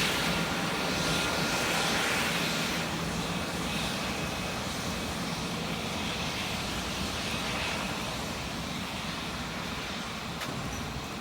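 Cessna Citation business jet's turbofan engines: a steady rushing jet noise with a faint high whine in the first few seconds, slowly fading as the jet moves away after takeoff.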